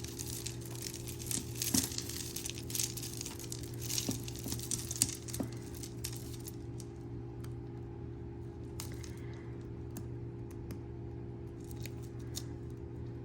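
Tangled metal jewelry chains being worked apart by hand: small clinks and light rattles of chain links and beads, busier in the first half and sparser later, over a steady low hum.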